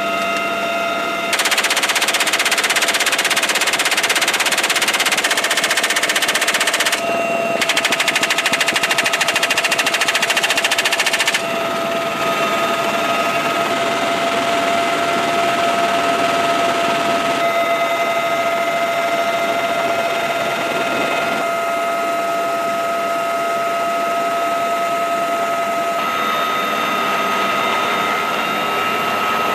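Door-mounted belt-fed machine gun firing two long sustained bursts, one starting about a second in and the next about seven seconds in, each lasting several seconds. They play over the steady whine and rumble of a helicopter's turbine engine and rotor, which carries on alone after the firing stops.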